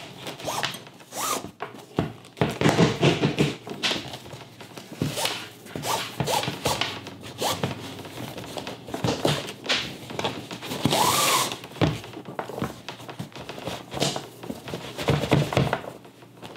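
Shoelaces being pulled out through the eyelets of a knit sneaker upper (adidas Yeezy Boost 350): a run of irregular zip-like scrapes and rubbing, with light handling knocks on the shoe and one longer hissing pull about eleven seconds in.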